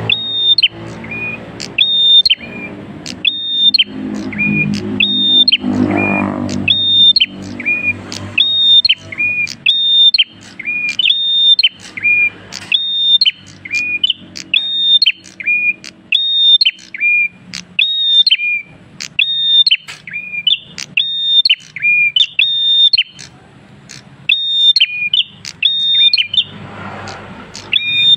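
Caged prenjak kristal singing nonstop: a loud, sharp two-note call, a high whistled note dropping to a lower one, repeated about once a second.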